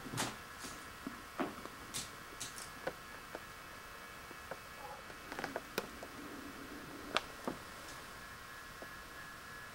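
Scattered light taps and clicks of a Siamese kitten's paws and claws, and the small toys it bats, on a hardwood floor, coming irregularly with a quick cluster about halfway through, over a faint steady hiss.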